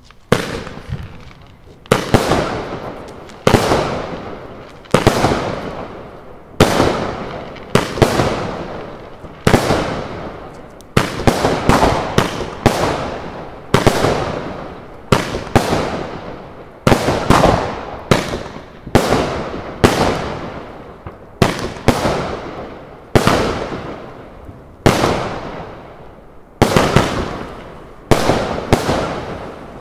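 A consumer fireworks battery (cake) firing shot after shot: some two dozen sharp bangs, about one every one to two seconds with a quicker run of shots near the middle, each fading out over about a second.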